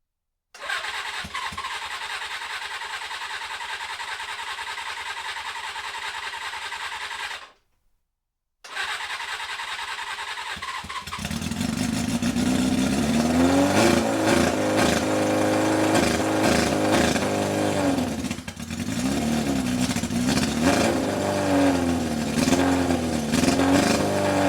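A 1980 Suzuki GS550's inline-four engine, on freshly rebuilt carburettors, cranks on the electric starter in two spells. About eleven seconds in it catches and runs, the revs rising and falling repeatedly. The owner says it only "runs ish" and suspects too much air going in, with no air filters fitted yet.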